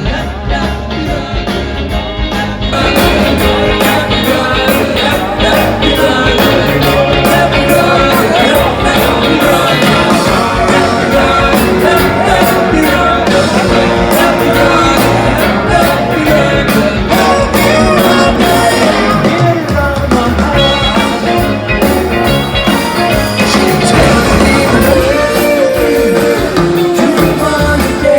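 Live rock-and-roll band playing, with electric guitar, bass, drums and sung vocals. The sound jumps louder and brighter about three seconds in.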